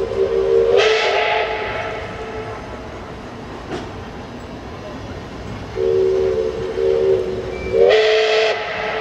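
Steam whistle of the L-class steam locomotive L-3095, blown in two long blasts. Each blast starts on a lower chord and then jumps to a higher, brighter note with a rush of steam hiss, first about a second in and again near the end.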